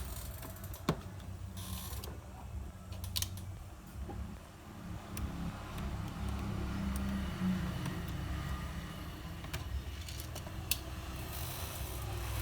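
Screws being taken out of a laptop's plastic bottom cover: a low mechanical whir with scattered small clicks and ticks.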